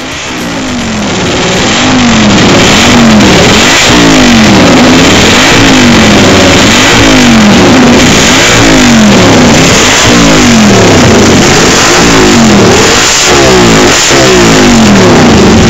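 Fath URS four-cylinder racing sidecar engine being warmed up and blipped on the throttle, its pitch jumping up and falling back about once a second. It is very loud, building up over the first couple of seconds.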